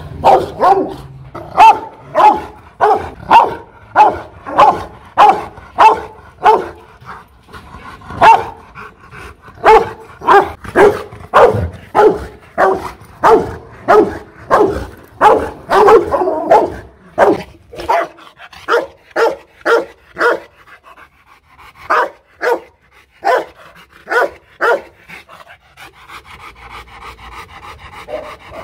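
Rottweiler barking aggressively at a training decoy, a rapid, regular string of loud barks at about two a second. After about 18 seconds the barks come fewer and further apart, and near the end there is heavy panting.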